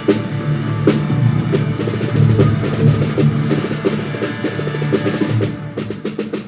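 A band playing: a drum kit hitting over sustained guitar and bass chords, with a quick run of drum strokes near the end.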